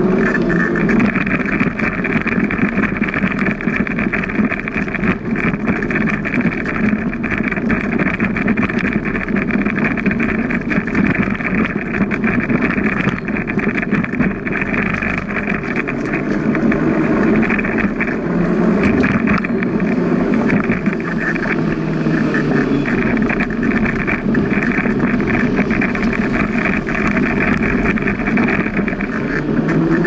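Steady, unbroken rushing noise of riding a bicycle along a path, without pauses or distinct events.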